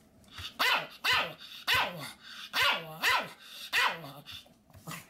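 A Pomeranian barking in a run of about six high-pitched barks, spaced roughly half a second to a second apart.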